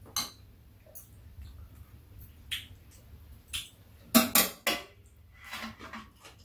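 Metal chopsticks and spoons clinking against ceramic bowls and a metal tray during a meal: scattered single clinks, with a quick cluster of louder ones about four seconds in.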